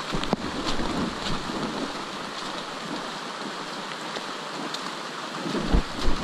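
Steady rain on the forest foliage, a hiss with many small drop ticks, and a couple of low thumps on the microphone near the end.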